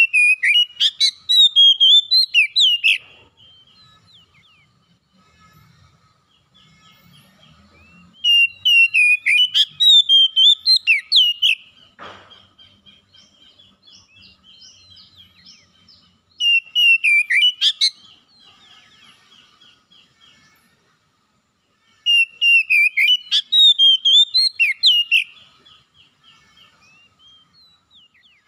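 Oriental magpie-robin singing in full song: four loud bursts of rapid, varied whistled phrases, each about three seconds long, with soft twittering in the pauses between them.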